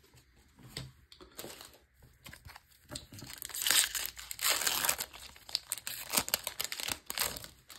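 Foil wrapper of a Magic: The Gathering set booster pack crinkling and tearing as it is handled. A few scattered crackles come first, then a dense run of crinkling from about three and a half seconds in to near the end.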